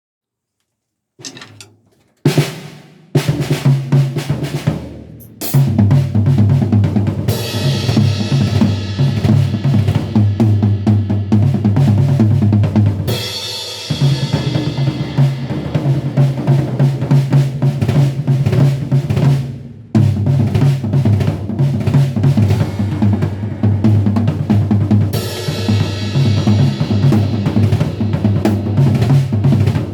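Rogers drum kit played to check its tom-toms: a few separate hits in the opening seconds, then fast continuous fills around the toms with bass drum from about five seconds on. The playing breaks off briefly twice.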